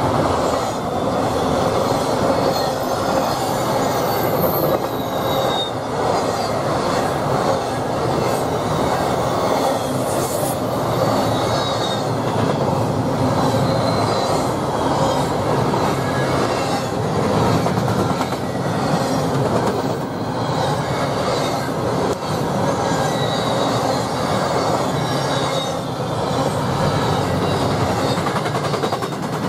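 Double-stack intermodal freight train passing at speed: a steady noise of steel wheels on rail, with repeated clacks and a faint, wavering high squeal from the wheels.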